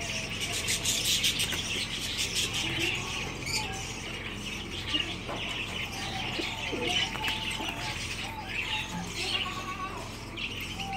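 Pigeons' wings flapping in quick bursts as they flutter up onto a hand to take seed, with birds chirping and calling throughout.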